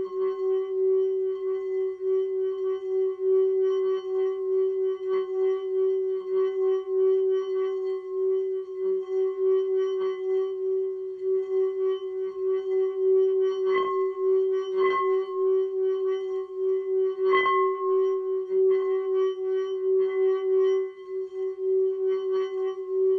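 Tibetan singing bowl rubbed around its rim with a wooden mallet, holding one steady ringing tone with higher overtones and a pulsing wobble in loudness. Three brief clicks come a little past the middle.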